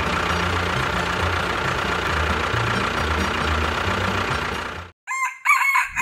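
A dense, steady, mechanical-sounding noise with low shifting notes underneath runs for about five seconds and then cuts off abruptly. Near the end a rooster crows once.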